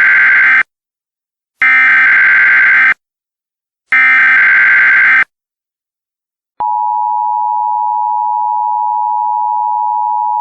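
Emergency Alert System SAME header: three harsh, screechy digital data bursts, each about a second long with a second's gap between them. About six and a half seconds in, the steady two-tone EAS attention signal starts and holds.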